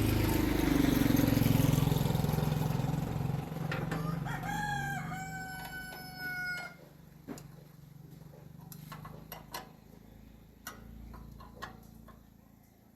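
A rooster crows once, about two seconds long, starting about four and a half seconds in. It crows over an engine hum that fades away in the first half. Afterwards there are only scattered light clicks and knocks.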